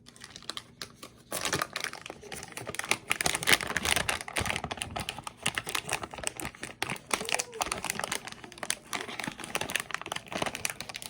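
Slime being worked by hand: a dense run of small sticky clicks and crackles, starting about a second in.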